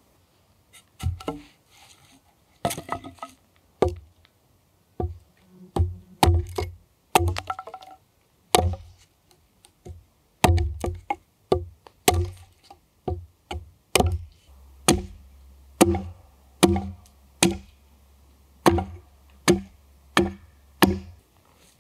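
A hand tool chopping and striking wood over and over. The knocks are sharp, each with a short woody ring. They come irregularly at first and then fall into an even beat of about one every half to one second.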